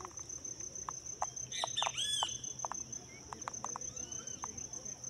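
Small birds chirping in short arched notes, busiest about two seconds in, over a steady high-pitched insect drone.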